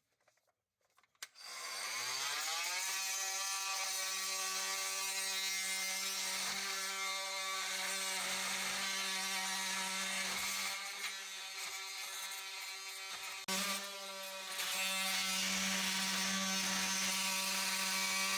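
Handheld electric power tool cutting wood. It spins up with a rising whine about a second in, then runs at one steady pitch, goes quieter for a few seconds past the middle and comes back up louder for the rest.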